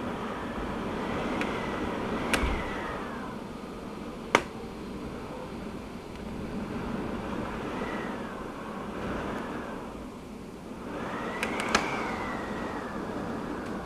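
Steady rain hiss with cars swishing past on a wet road, each pass swelling and fading over a couple of seconds, three times. A few sharp ticks come through, the loudest about four seconds in.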